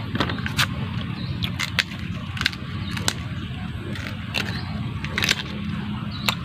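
A person chewing crisp food up close, with irregular crunching clicks over a steady low hum.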